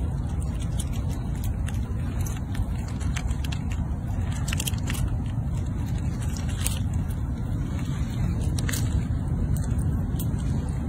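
Fox squirrel gnawing the shell of a peanut held in its paws: scattered sharp clicks and scraping crackles, a few close together about halfway through. Under them runs a steady low rumble.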